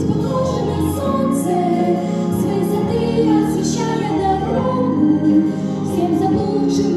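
Two young girls singing a duet in Russian with instrumental accompaniment.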